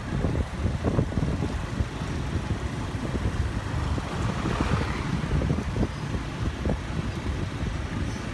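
A car driving, heard from inside the cabin: a steady low rumble of engine and tyres, with a rushing swell about halfway through.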